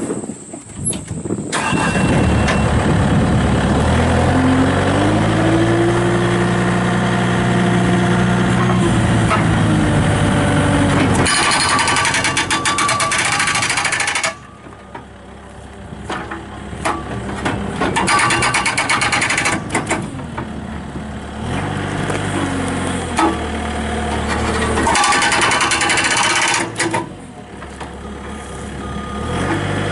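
Skid steer loader's diesel engine starting and revving up, then an MSB Bob400 hydraulic breaker hammer pounding the ground in three bursts of rapid blows, with the engine running between them.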